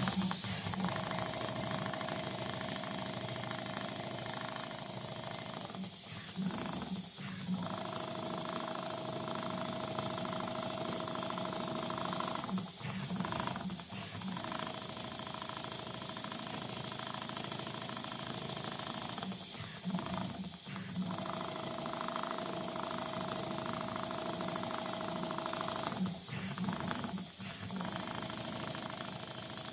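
Richpeace computerized rotating-head sewing machine stitching a pattern into leather, running steadily with a constant high hiss. The stitching stops briefly about every six to seven seconds, then resumes.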